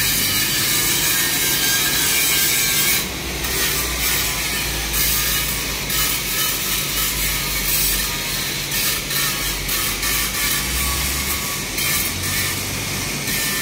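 TIG welding arc on a stainless steel pipe joint, hissing steadily over a low electrical hum, with a brief drop about three seconds in.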